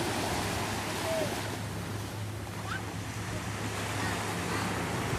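Distant jet ski engine running steadily, driving water up the hose to a flyboard, over wind and surf noise.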